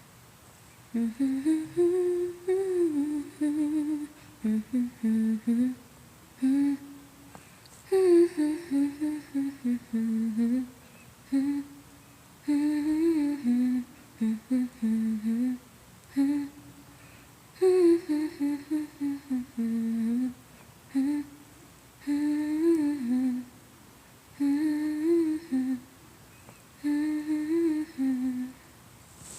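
A lone voice humming a wordless melody in short phrases with pauses between, without accompaniment.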